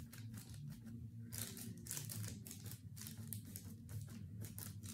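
Faint, irregular rustling and soft pressing as hands flatten balls of granary bread dough on a floured baking tray, over a low steady hum.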